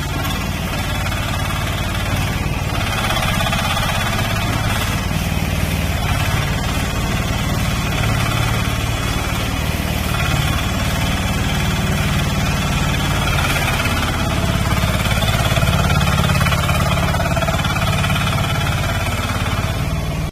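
Crawler track dumper's engine running steadily, a little louder for a few seconds near the end.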